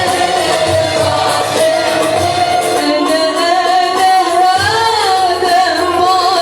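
A woman singing an Arabic song over instrumental accompaniment with a steady low beat. Her voice bends through an ornamented phrase near the end.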